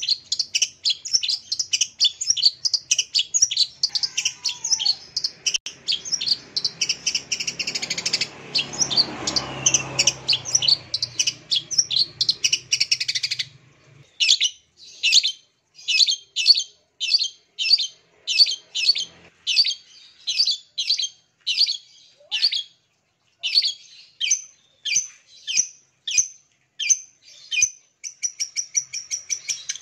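Long-tailed shrike (cendet) calling: a fast, unbroken run of harsh chattering notes, then from about thirteen seconds in, separate notes about one and a half a second, quickening again near the end.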